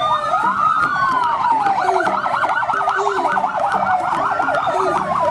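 Fire engine sirens sounding together, a slow rising-and-falling wail overlapping a fast yelp that warbles about five or six times a second.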